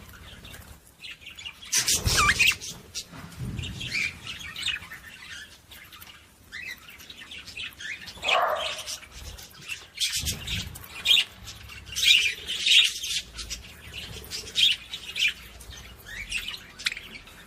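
Budgerigars chirping and chattering, quick high warbles and squawks one after another. A couple of louder rustles come about two and ten seconds in.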